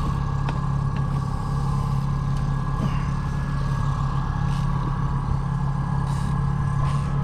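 Outboard motor running steadily at trolling speed, a constant even hum, with a few light clicks.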